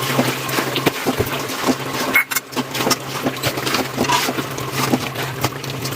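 Spatula stirring and scraping chicken as it fries in masala in an uncovered kadai, irregular scrapes and knocks over a sizzle, with a steady low hum underneath.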